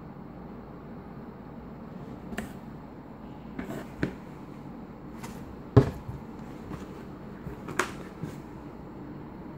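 Packaging being handled inside a cardboard box: a few sharp knocks and taps, the loudest about six seconds in, over a steady low background noise.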